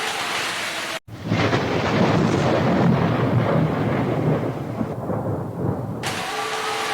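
Steady heavy rain hiss that cuts out abruptly about a second in, followed by a long rumble of rolling thunder lasting about five seconds. The rain hiss comes back suddenly near the end.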